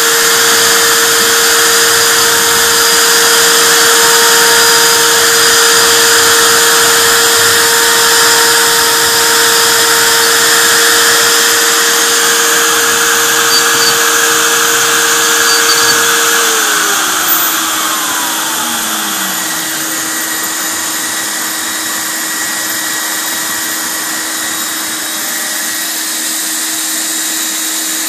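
Spindle motor of a CNC gantry router whining steadily at high speed, then switched off about sixteen seconds in and spinning down with a falling whine. A steadier hum of another motor keeps running after it.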